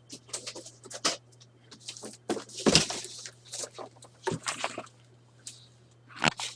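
Cardboard box and packaging being handled as a large computer case is pulled out: a run of short, irregular scrapes and rustles, loudest near the middle, over a faint steady low hum.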